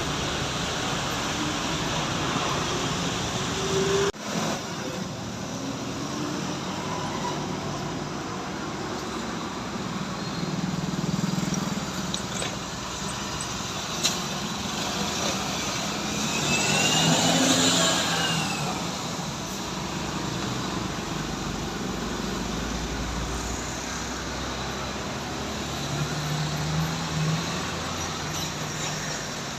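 Steady road traffic going past, engine and tyre noise, with one vehicle passing close and loudest about halfway through.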